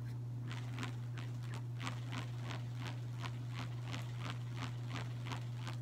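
A bug on a leash (a card with a rubber band stretched across pencil-eraser buffers) whirled around on a string, its rubber band buzzing in faint, regular pulses about three times a second.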